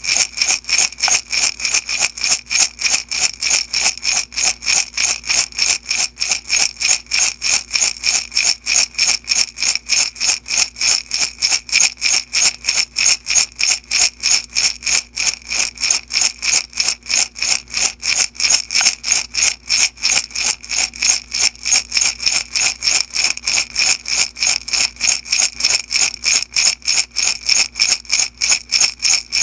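Beads shaken in a glass jar, rattling in a steady, even rhythm of about three to four shakes a second.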